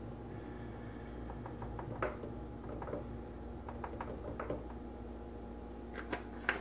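Faint clicks and light taps from a small glass spice jar of poultry seasoning as it is shaken out over a plastic mixing bowl, with a few sharper clicks near the end as the lid is handled, over a steady low hum.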